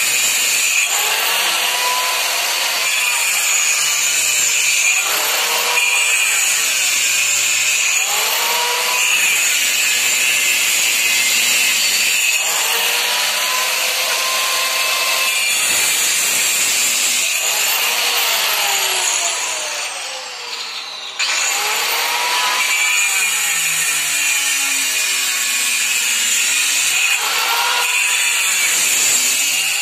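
Handheld electric circular-blade cutter grinding into a brick wall: a loud, steady whine mixed with the rasp of the blade in the brick, its pitch sagging every second or two as the blade bites under load and then recovering. About two-thirds through, the motor winds down for a couple of seconds and then spins back up.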